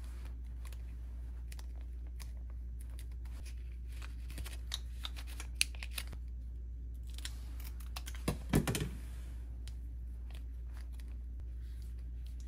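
Plastic cat-treat tubes crinkling and clicking as they are torn open and squeezed into a ceramic bowl, with a louder clatter about eight and a half seconds in. A steady low hum runs underneath.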